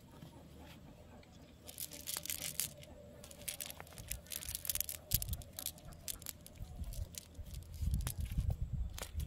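Nylon cast net mesh being pulled open and shaken out on grass by hand, a dry rustling and crackling with many short clicks that starts about two seconds in, with a few low bumps near the end.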